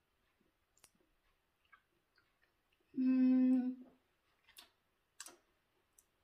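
A woman hums one steady closed-mouth 'mmm' lasting about a second, tasting a spoonful of mämmi. A few light clicks of a spoon on a plate come before and after it.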